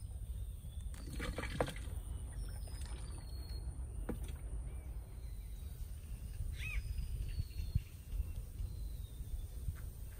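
Outdoor ambience at the water's edge: a steady low rumble with scattered thin bird calls and a few clicks and knocks.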